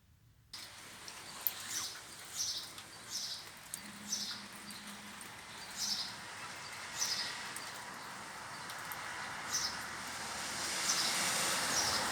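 Steady hiss of falling rain that comes in suddenly about half a second in and grows a little louder near the end, with a bird giving a short high falling chirp over and over, about once a second.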